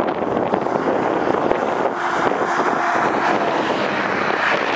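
Wind rushing over the microphone in a steady noisy roar, with a car passing close on the highway near the end.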